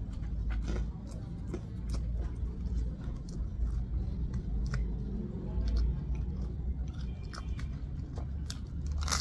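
A person biting into and chewing a crusty Vietnamese bánh mì roll: the crisp crust crackles between chews. A louder crunch comes near the end as another bite goes in.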